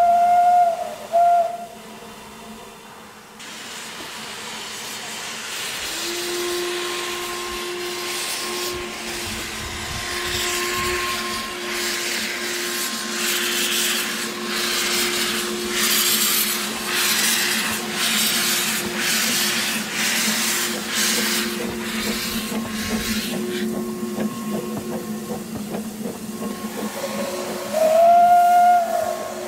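A narrow-gauge Double Fairlie steam locomotive whistles once with a brief second toot, then hisses heavily with its cylinder drain cocks open as it starts away, its exhaust beats coming through the hiss. Another whistle blast sounds near the end.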